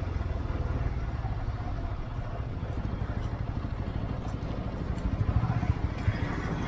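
TVS Apache RTR 200 4V's single-cylinder engine running at low revs as the motorcycle rolls along slowly, a steady low rumble that turns rougher and pulses briefly about five seconds in.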